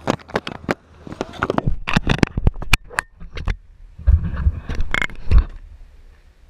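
Irregular clicks, knocks and scrapes of an action camera being handled and moved close to the microphone, with low rumbles from about four seconds in, then quieter near the end.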